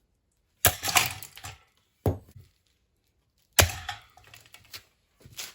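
Four sharp knocks on hard plastic fan parts, the first and third loudest and each followed by a short spell of cracking and rattle.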